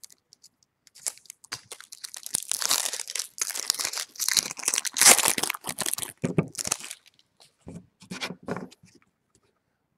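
A baseball card pack wrapper being torn open and crinkled: a run of ripping and rustling noises lasting about six seconds, then a few shorter crinkles near the end.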